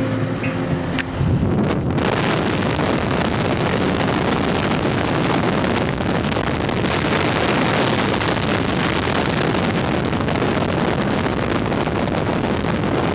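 Loud rushing wind buffeting the camera microphone in a car moving at highway speed, setting in suddenly about a second in and drowning out music that plays with steady tones at the start.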